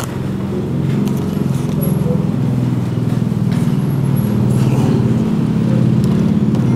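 A steady low engine drone, like a motor vehicle running, with a few faint clicks over it.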